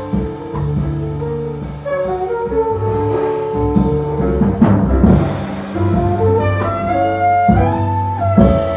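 Live jazz quartet playing: a saxophone lead line over piano, bass and drums with cymbal washes.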